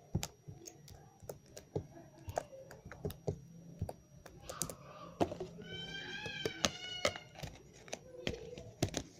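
Irregular sharp clicks and small pops from slime being handled and pressed in its container. About six seconds in a brief high-pitched cry sounds in the background.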